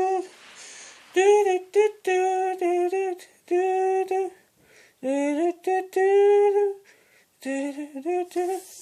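A child singing a wordless tune in a high voice, in short syllables and held notes with brief pauses.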